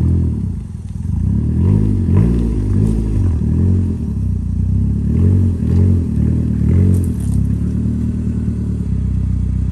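Honda Civic hatchback's four-cylinder engine running at low revs as the car moves off on its first drive after being reassembled. The exhaust note swells and eases several times with light throttle, then settles to a steady idle near the end.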